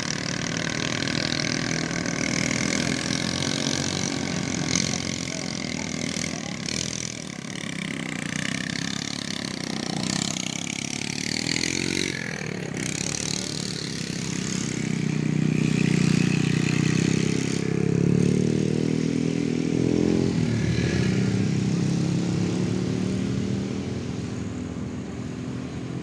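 Mitsubishi L300 pickup and small motorcycles labouring up a rough dirt-and-gravel slope. Their engine notes rise and fall, and the sound is loudest a little past the middle.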